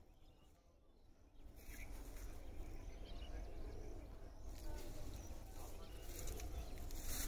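Outdoor background noise with a steady low rumble, dipping quieter for about a second near the start.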